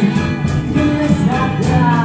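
Live band music: a woman singing a melody into a microphone over acoustic guitar and a hand drum keeping a steady beat.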